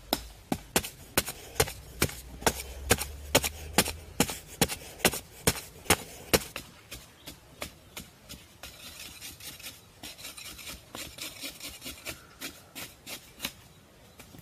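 A hand digging tool striking the ground in a quick steady rhythm, about two or three blows a second, loud at first and softer after about six seconds, with a scraping sound joining in during the second half.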